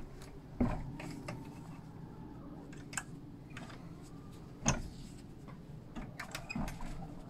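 Scattered knocks and clicks of a wooden door and its latch being handled, the loudest knock a little under five seconds in, with a run of small clicks near the end.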